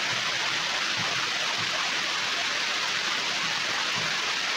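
Steady, even hiss with no change in level.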